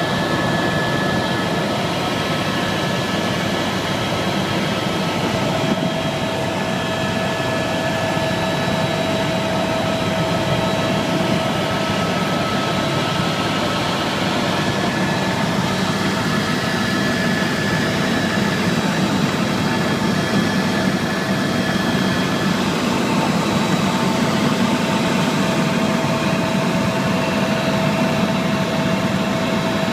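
Helicopter turbine engine and rotor running steadily: a constant rushing drone with a thin, steady high turbine whine on top.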